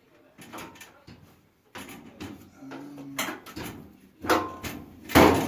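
Knocks, clatter and scrapes of metal dryer parts being handled during disassembly, the loudest knock near the end.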